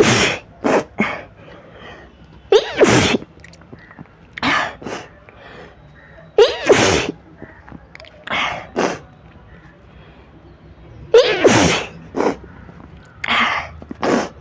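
A young woman sneezing again and again, set off by chikni sneezing powder: four big sneezes, each with a rising drawn-in 'ah' before the burst, about every three to four seconds, with shorter sharp sneezes between them.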